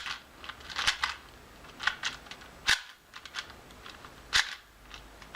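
Plastic Cyclone Boys speed cube being turned by hand to test its corner cutting: a series of sharp, irregular plastic clacks as the layers snap into place, about eight in all.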